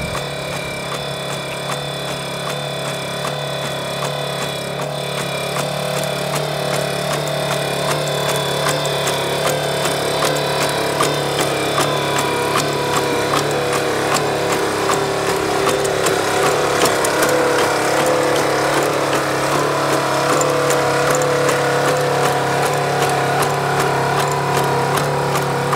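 Boston Dynamics LS3 legged robot's engine running steadily as the robot walks, getting louder through the first two-thirds as it comes close.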